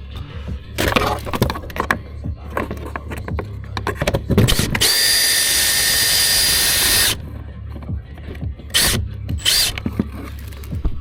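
Workshop tool noise: scattered knocks and clanks of work on metal parts, then a power tool runs steadily for about two seconds, starting and stopping abruptly, followed by more knocks.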